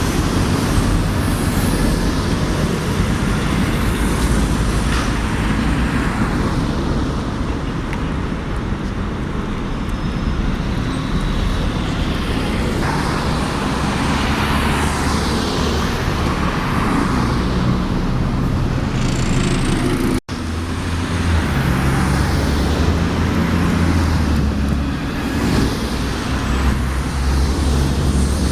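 Urban road traffic, with heavy engines, buses among them, running and passing by. The sound breaks off for an instant about twenty seconds in.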